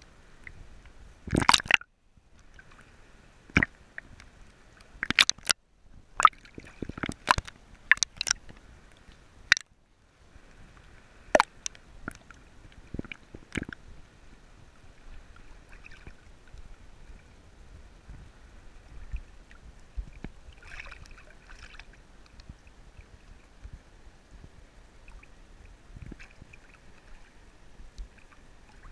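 Small sea waves sloshing and splashing against a camera floating at the water's surface, with a run of sharp splashes through the first half, then gentler, quieter lapping.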